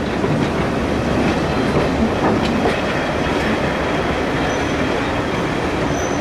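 Train coaches rolling past at close range on the adjacent track: a steady rumble of wheels on rail with faint clicks.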